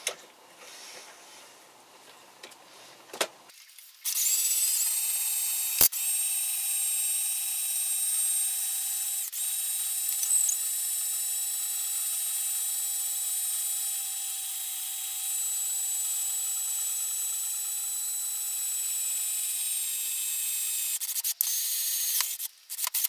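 Cordless drill running at a steady speed, driving a homemade bottle-cutting jig that turns a glass bottle. It starts about four seconds in, speeding up briefly, with one sharp knock just after, and stops near the end.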